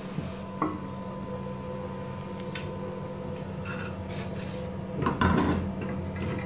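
Wooden spatula scraping and knocking against an aluminium pot as fried taro pieces are lifted out of the oil, with a louder clatter of the pot and spatula about five seconds in, under a steady low hum.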